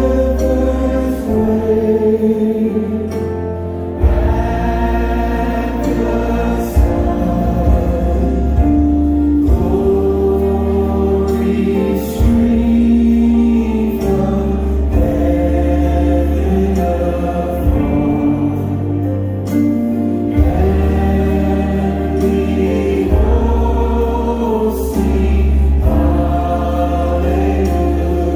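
Many voices singing a slow worship song together, like a choir, in long held phrases over steady low bass notes from the accompaniment.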